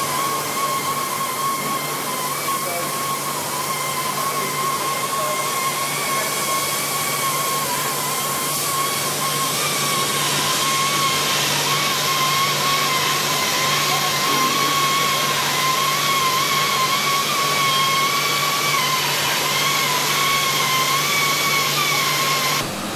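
Gantry profile-cutting machine's torch cutting through steel plate: a loud, steady hiss with a slightly wavering whistle over a low hum. It cuts off abruptly just before the end.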